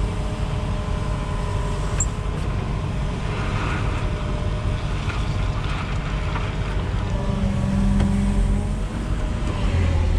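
Diesel engine of a wheeled excavator running steadily, a little louder for about a second around eight seconds in.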